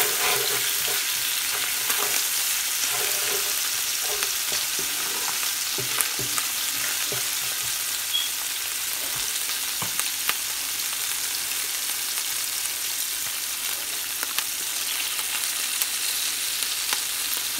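Sliced onions frying in hot oil in a large pot, with a steady sizzle. A wooden spatula stirs and scrapes against the pot now and then, making a few sharp ticks.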